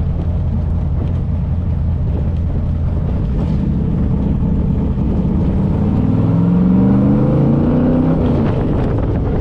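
350 V8 of a Shelby Cobra replica running under way, a steady drone that rises in pitch about five seconds in as the car accelerates, then eases back slightly near the end.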